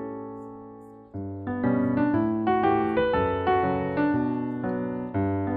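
Solo piano background music: a held chord fades for about a second, then a lively run of notes resumes.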